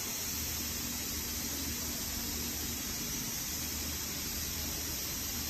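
Steady hiss with a faint low hum underneath, even throughout, with no distinct knocks or clicks.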